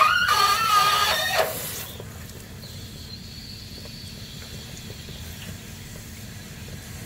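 Water draining from a water heater's drain valve: a high whistle that wavers in pitch and stops about two seconds in, then a steady hiss of running water.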